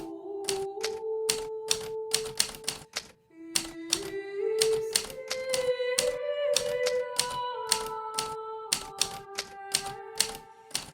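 Hermes Baby portable typewriter keys striking in quick, uneven runs of keystrokes, with a brief pause about three seconds in. Slow melodic music plays underneath.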